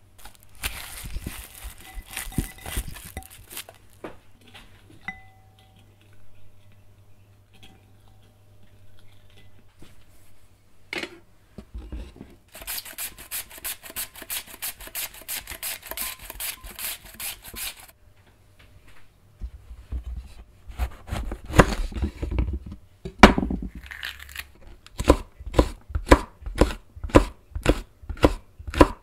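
An onion being shaved thin on a plastic hand slicer into a glass bowl: a fast run of rasping strokes. Later, a kitchen knife cuts a green bell pepper into thin strips on a wooden cutting board, with even chops about two a second near the end.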